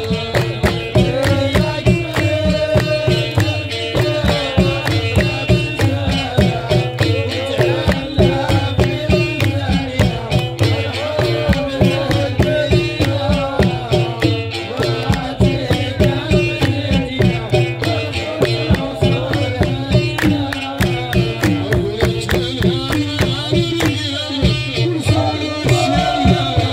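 Touat folk music: hand drums and handclapping keep a steady fast beat under group singing.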